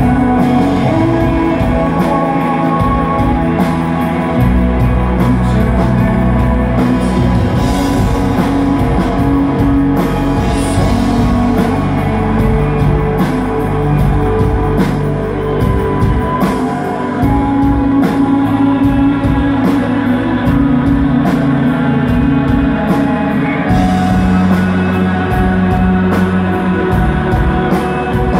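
Shoegaze rock band playing live: layered electric guitars, bass and a steady drum beat in one dense, continuous wash of sound.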